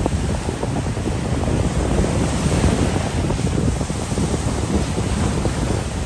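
Small surf waves breaking and washing up over a sandy beach, a continuous rushing wash, with wind buffeting the microphone.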